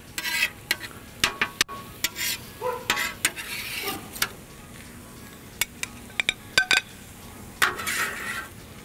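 Metal spatula scraping and clinking across a hot steel flat-top griddle, scooping up scrambled eggs, in a run of short scrapes and sharp taps, with a faint sizzle underneath.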